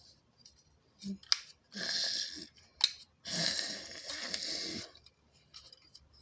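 Small plastic toy and egg shell being handled: a few sharp clicks and two stretches of scraping rustle, the longer one near the middle.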